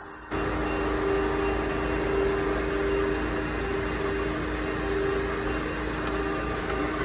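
A motor-driven machine switched on just after the start, running with a steady rushing noise and a hum, and cut off suddenly near the end.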